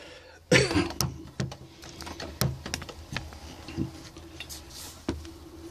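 Scattered light clicks and knocks of hands and tools being handled at a workbench, the loudest a little after half a second in, over a faint steady hum.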